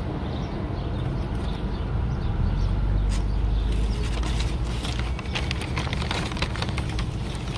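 Wind buffeting the microphone, a steady low rumble that swells about two to four seconds in, with a run of short clicks and crackles from about four seconds in.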